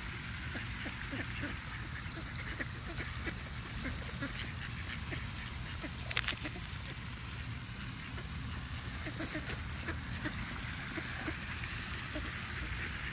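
A flock of ducks quacking in short, scattered calls over a steady low background rumble, with one sharp click about six seconds in.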